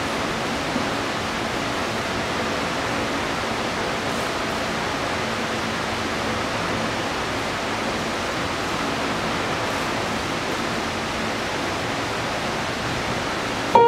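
Steady, even hiss with no distinct events; music starts abruptly in the last moment.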